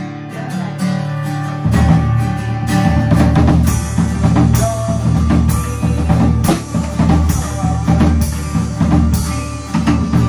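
Acoustic guitar strumming chords. About two seconds in, a drum kit joins with a steady beat of kick, snare and cymbals.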